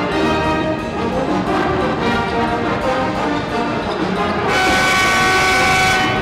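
Music with brass playing in the arena, moving through short notes and then closing on a long, loud held chord that starts about four and a half seconds in and cuts off just before the end.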